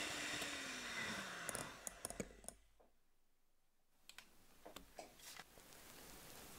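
Electric hand mixer winding down, its motor tone falling in pitch and fading over the first second and a half. Scattered light clicks and taps follow, with a quiet gap between two clusters of them.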